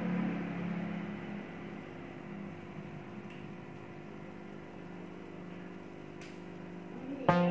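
Steady hum of an aquarium pump driving a cup filter, with water bubbling at its outlet. Loud electronic music starts suddenly near the end.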